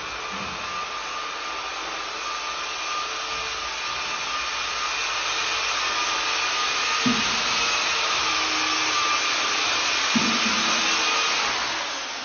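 Firos Z300 mechanised plastering machine running with a steady hiss and a high whine, with two brief knocks. Near the end it is switched off, fading as its whine slides down in pitch.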